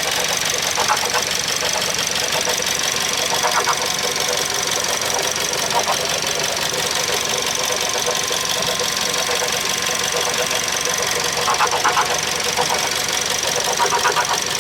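Suzuki Swift Sport ZC31S's 1.6-litre M16A four-cylinder engine running steadily with a high-pitched whine, broken by short bursts of rattling every few seconds. The abnormal noise is taken by the owner to be a failing part in the accessory belt drive.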